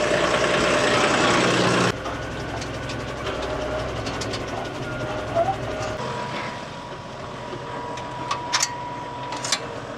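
Tractor running, loud and hissy for the first two seconds, then steadier and quieter, with a couple of sharp metallic clicks near the end as the sprayer's manual-fold booms are unfolded by hand.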